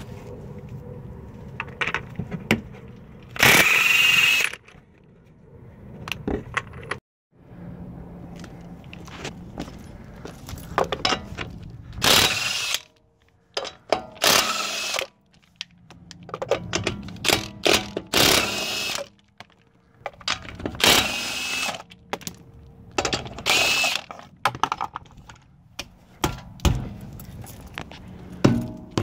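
Snap-on CT8850 cordless impact wrench hammering in several short bursts of about a second each, on bolts and lug nuts. Metallic clicks and clanks from sockets and parts come between the bursts.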